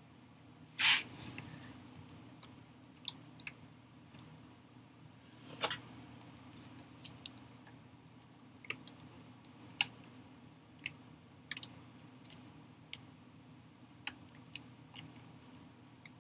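Light scattered clicks and taps of a laptop LCD panel and its connector being handled and fitted into the plastic lid, with two louder brief scrapes about a second in and near six seconds in, over a faint steady low hum.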